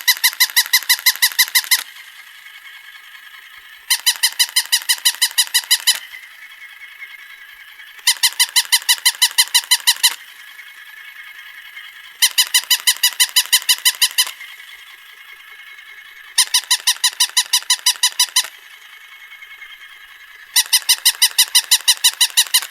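Plastic electronic toy puppy dog giving bursts of quick, tinny electronic barks from its speaker. Each burst is a fast string of about a dozen yips lasting some two seconds, repeated six times about every four seconds, with a faint steady hum between bursts.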